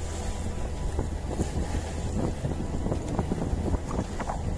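Small wooden fishing boat under way through choppy sea: its engine running with a steady low drone, water splashing against the hull in many short slaps, and wind buffeting the microphone.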